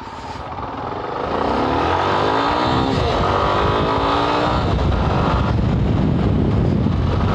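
Yamaha Ténéré 250's single-cylinder engine accelerating, its pitch rising, dropping at a gear change about three seconds in, then rising again. From a little past halfway, wind noise on the microphone covers the engine.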